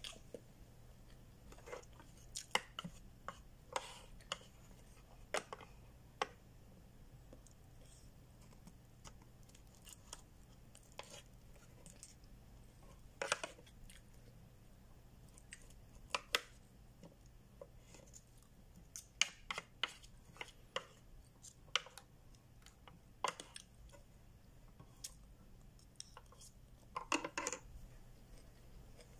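Eating sounds: chewing, with scattered short clicks and taps of a disposable plastic fork against a food container, a quick cluster of them near the end, over a low steady hum.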